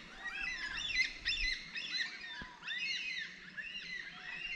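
A flock of birds calling as it flies over: many short, overlapping calls, each rising and then falling in pitch.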